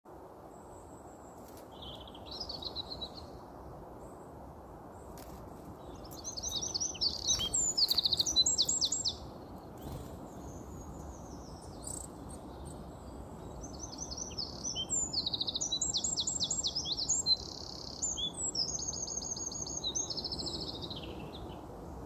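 A small songbird singing loud, fast, high trilling phrases: a short one about two seconds in, a louder one around seven to nine seconds, and a long varied run from about fourteen seconds until near the end. A steady low background noise runs underneath.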